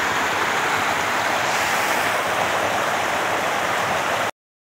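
Muddy floodwater rushing through a creek in spate, a steady loud rushing that cuts off suddenly about four seconds in.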